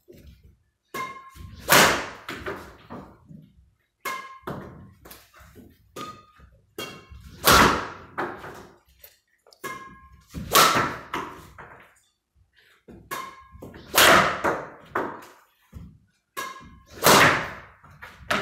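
Yonex Nanoray 95DX badminton racket smashing shuttlecocks six times, about every three seconds: each smash is a short ringing ping off the strings followed within a second by a louder thud of the shuttlecock striking a pillow.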